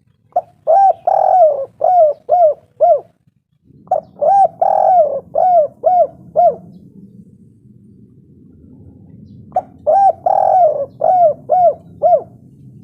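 Spotted dove (tekukur) cooing: three song phrases, each a short coo, a longer drawn-out coo, then three quick coos. A faint low background hum sets in about four seconds in.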